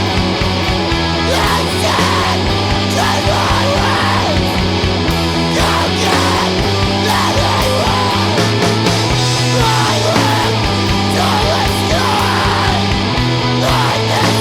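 Loud, heavy rock music with distorted guitars, bass and drums, and shouted vocals over it.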